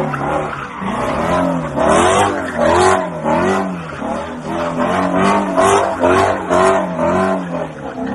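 Ford Mustang engine revving up and down in quick repeated swells, about twice a second, while its rear tyres squeal and skid through donuts.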